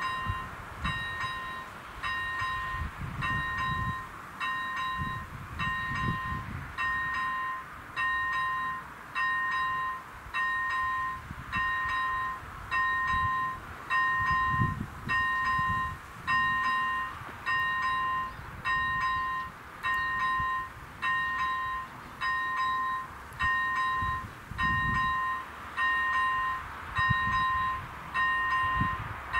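Czech level crossing's electronic warning bell ringing: a two-tone ding that fades after each stroke, repeating about once a second. It signals that the crossing is closed for an approaching train.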